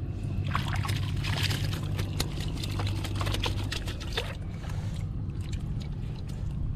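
Shallow water splashing and sloshing, with many sharp splashes in the first four seconds, over a steady low motor hum.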